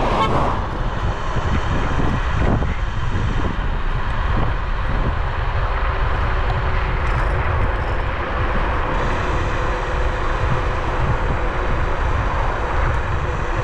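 Bluetran Lightning 72V electric scooter riding at speed: a steady, loud rush of wind over the microphone with tyre and road noise.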